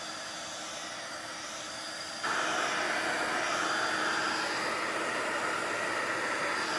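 Handheld craft heat gun blowing a steady stream of hot air to dry alcohol ink, a constant fan hiss with a faint hum; it gets louder and brighter about two seconds in and holds there.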